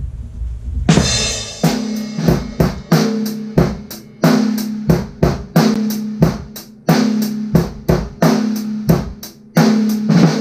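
Drum kit playing a steady beat, starting about a second in, with bass drum and a snare struck on the head alone, without rimshots. A low ring hangs between the strokes. This is the snare sound that, in a lesson on why a snare fails to cut through, is set against the rimshot version.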